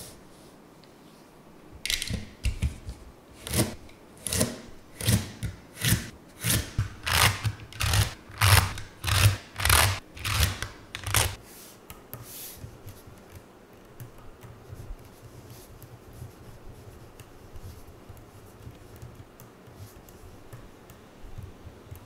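Small magnetic balls snapping and scraping together as they are pressed into place, a steady run of sharp snaps about two a second, followed after about 12 s by fainter scattered clicking.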